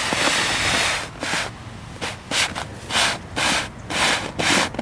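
A sled scraping over thin snow: a long sliding hiss through the first second, then a string of short crunching scrapes, several a second.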